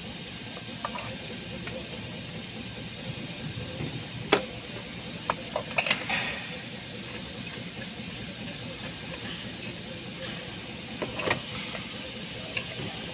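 Steady background hiss with a few sharp clicks and knocks from hand tools on the engine while spark plugs are being removed: one about four seconds in, a cluster around six seconds, and another near the end.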